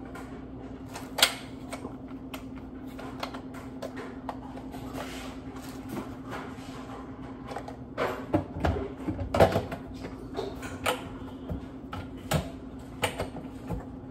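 Hard plastic clicks and knocks as the parts of a Ninja blender are handled and snapped together, busiest about eight to nine and a half seconds in. A steady low hum runs underneath.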